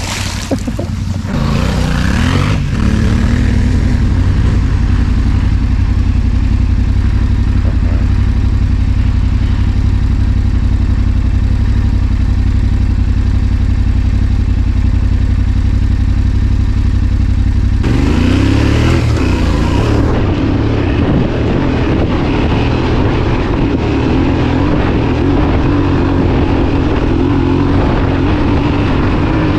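Twin-cylinder trail motorcycle engine running under way, rising in pitch as it accelerates in the first few seconds, then pulling steadily; the engine note changes about eighteen seconds in.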